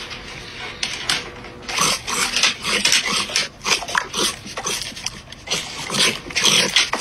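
A dog eating food taken from a hand, crunching and chewing in quick, irregular bursts.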